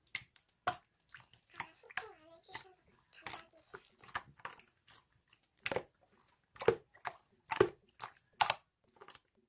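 Crunching and chewing of crisp food close to the microphone, sharp crunches coming roughly once a second, with a few brief voice sounds in between.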